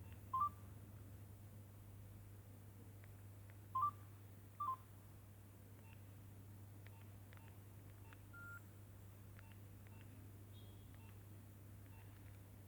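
Nokia 6070 mobile phone keypad beeps as keys are pressed: three short beeps, one near the start and two close together about four seconds in, followed by faint key clicks and soft blips. A low steady hum lies underneath.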